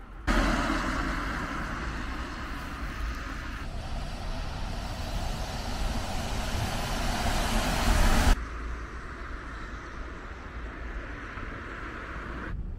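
Road traffic on a wet street: a steady rushing noise of passing vehicles that cuts off abruptly about eight seconds in, leaving a quieter outdoor background.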